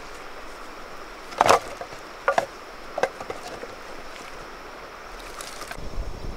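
Wooden branches and logs knocking together as they are dropped and stacked, with one loud clatter about a second and a half in and a few lighter knocks after.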